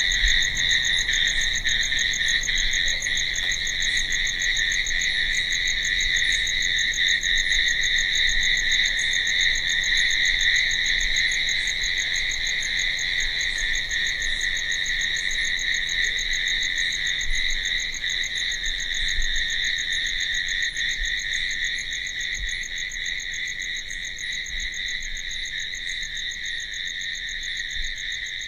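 A chorus of crickets chirping in an unbroken high trill, growing slowly quieter through the second half.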